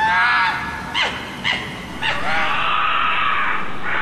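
Red fox calls: a few sharp, yelping barks that drop in pitch, then a longer wavering call.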